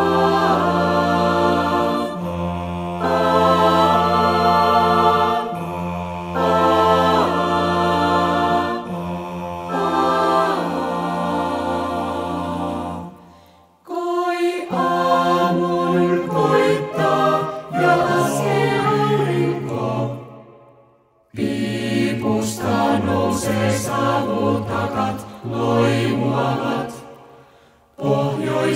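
Mixed a cappella choir, sopranos down to basses, mixed together from separate home recordings, singing slow sustained chords. For about the first half the basses hold a long low note beneath moving upper voices; after a brief break the choir goes on in shorter phrases, each ending in a short silence.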